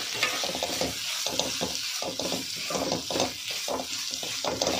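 Metal spatula stirring and scraping a vegetable filling around a metal kadai in quick, irregular strokes, with the filling sizzling over the flame as the grated mozzarella is mixed in.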